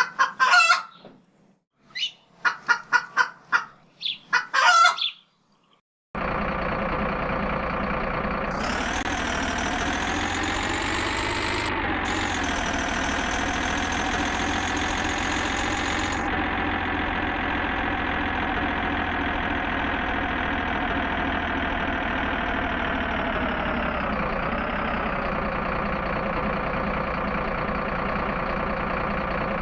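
A chicken clucking and a rooster crowing in short bursts, then from about six seconds a steady engine idling, its pitch rising a little twice.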